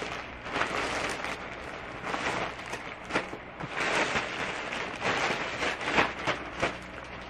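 Plastic packaging crinkling and rustling in irregular crackles as a plastic mailer bag of clothes is handled and opened.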